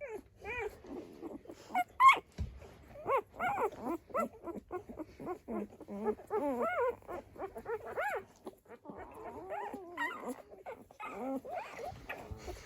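Six-day-old Dalmatian puppies squeaking and whimpering, many short calls that rise and fall in pitch, some overlapping.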